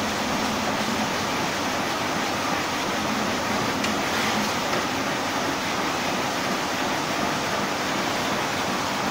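Semi-automatic sleeve shrink-wrapping machine and its PE shrink tunnel running, giving a steady, even blower-like noise with a faint low hum. A faint click comes about four seconds in.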